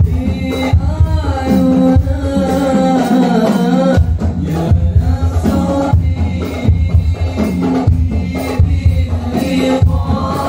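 Sholawat, Islamic devotional songs, sung by a group of young male voices into microphones and amplified through a PA, over a steady low beat.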